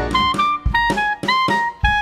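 Background instrumental music: a melody of separate, sliding notes over regular drum hits.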